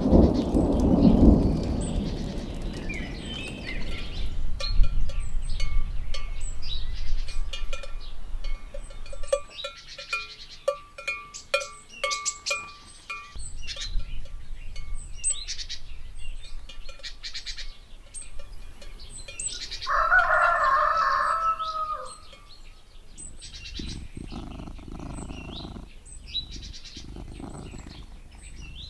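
Farmyard sounds: livestock bells clinking and ringing over and over, with birds chirping. A farm animal gives one loud call about twenty seconds in.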